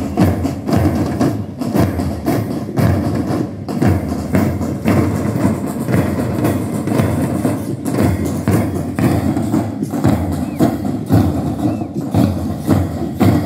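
School parade drum band, with snare and bass drums and cymbals, beating a steady marching rhythm of about two to three strokes a second.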